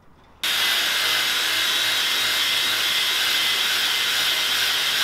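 Cordless polisher with a foam pad running at high speed, buffing resin polish onto a plastic rear light lens. The steady whirr with a high whine starts suddenly about half a second in.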